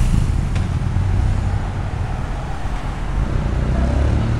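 City street traffic: a steady low rumble of cars on the road.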